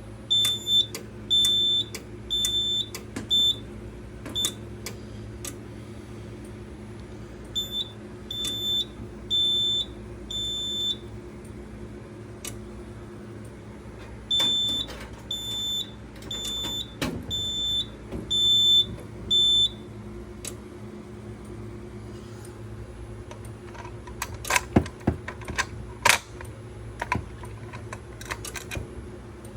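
Fire alarm equipment beeping under test: short, high-pitched electronic beeps in three runs of about four to seven, roughly a beep and a half a second. A few sharp clicks and knocks follow near the end.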